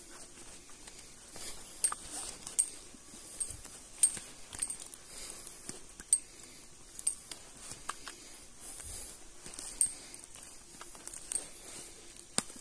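Footsteps of a person walking on a trail: irregular crunches and clicks, about one a second.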